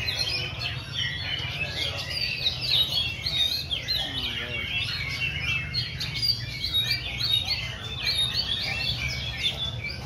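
A dense chorus of caged songbirds singing at once: overlapping whistled phrases and quick chirps with no break, among them the songs of oriental magpie-robins (kacer).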